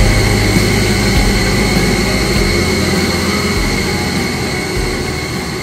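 Steady, loud drone of running plant-room machinery with a constant high-pitched whine over a low rumble, fading gradually toward the end.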